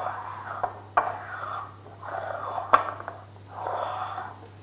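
Hands squeezing and working crumbly almond-flour and egg-white dough in a glass bowl: rubbing, scrunching strokes about once a second, with a few sharp clicks.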